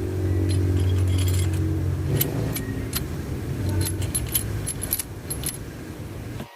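Metal parts and hand tools clinking and rattling in quick, irregular clicks over a steady low hum.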